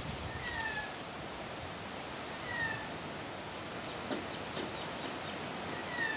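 An animal's short, falling call with a meow-like shape, repeated three times about two or three seconds apart over a steady background hiss, with a couple of faint clicks about four seconds in.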